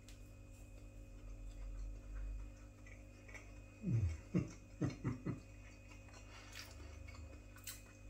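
A man chewing a mouthful of beef burger in white bread, with soft mouth sounds. About four seconds in come four or five short humming "mm"s that drop in pitch, a sign of relish.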